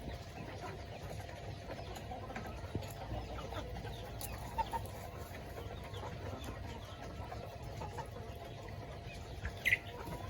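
Kampung chickens clucking, with short scattered calls over a low steady rumble, and one louder, higher-pitched call near the end.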